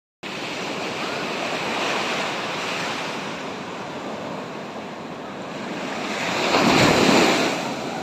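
Sea surf on a sandy beach: a steady wash of small waves, with one wave breaking and rushing up the sand, loudest about seven seconds in.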